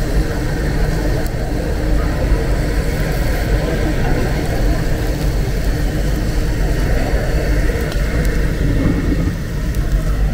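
Steady low rumble of background noise, with a busy murmur over it and no single sound standing out.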